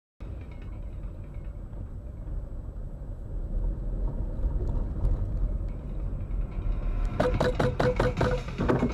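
Car driving, heard from inside the cabin through a dashcam: a steady low rumble of engine and road. About seven seconds in comes a quick run of sharp knocks lasting about a second and a half, with a dotted tone running under them.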